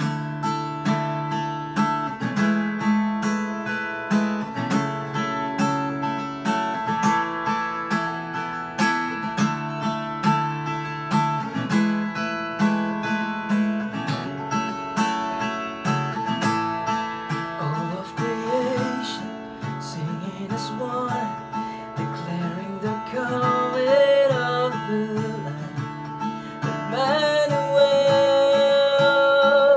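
Acoustic guitar strummed in a steady rhythm, picked up through a laptop's built-in microphone. About two-thirds of the way in, a man's voice joins, singing and ending on a long held note.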